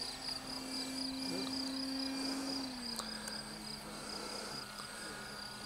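Propeller and motor of an RC model Pilatus PC-6 Turbo Porter droning steadily in flight, its pitch stepping down a little under halfway through as the throttle is eased, with insects chirping in quick pulses underneath.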